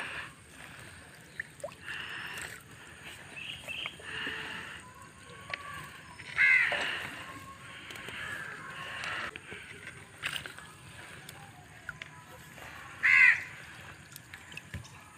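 Crows cawing in a run of short calls, the two loudest about six and a half and thirteen seconds in, over the slosh and drip of a wet gill net being hauled hand over hand into a small boat.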